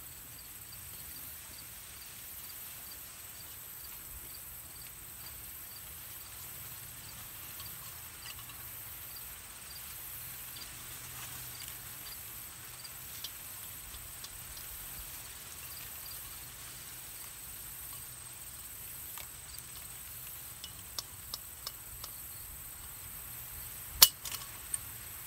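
Steel foothold trap (a four-spring Bridger 1 3/4 modified) snapping shut with one loud, sharp metallic snap near the end, set off while being pushed down with a pipe; a few light metal clicks come just before it. Insects chirr steadily in the background throughout.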